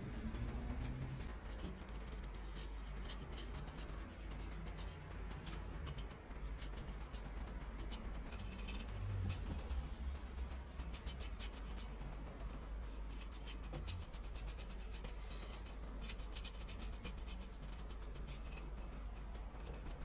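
A bristle paintbrush scratching and swishing across bare wood in many short, irregular strokes as a brown finish is brushed onto the wooden panels of a coffee grinder's box.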